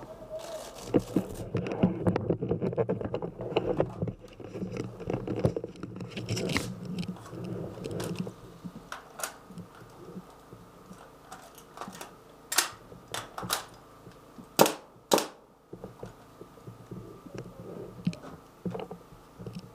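Clattering handling of an airsoft gun for about the first eight seconds, typical of a magazine change after running empty. After that comes a handful of separate sharp single shots, the loudest two about half a second apart near three-quarters of the way through.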